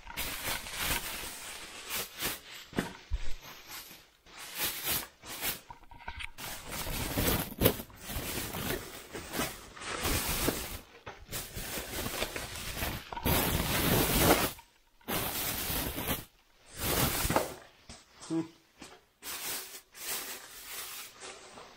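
Plastic wrapping and bubble wrap rustling and crinkling as packaging is handled, in irregular bursts with sharp clicks and crackles.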